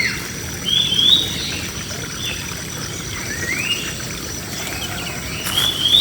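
Birds singing in a tree: short, rising whistled notes repeated every second or so, loudest about a second in and again near the end, over a steady low background rumble and a faint high steady tone.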